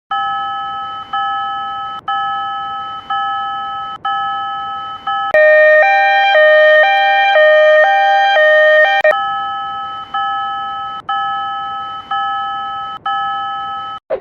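Japanese railroad crossing (fumikiri) warning bell ringing: electronic dings repeating about once a second, each fading away. From about five to nine seconds in, a louder crossing alarm takes over, alternating quickly between two tones, and then the slower dings resume.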